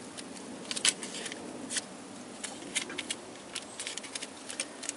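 Paper note and duct tape crinkling and crackling as they are handled and pressed onto the starter motor cables: an irregular run of small crackles and clicks, loudest about a second in.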